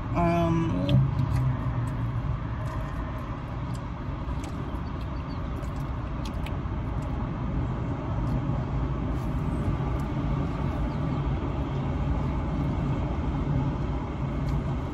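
Steady low rumble of a car heard from inside its cabin. A short hummed voice sound comes in the first second, and a few faint small clicks follow.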